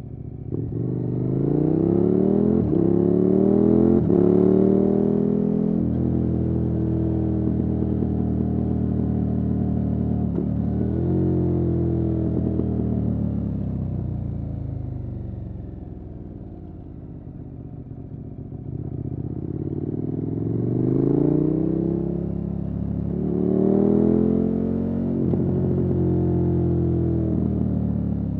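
KTM 1290 Super Adventure S's V-twin engine through a Wings aftermarket exhaust, pulling hard with rising pitch and upshifting through the gears. It holds steady, eases off and quietens around the middle, then pulls twice more near the end.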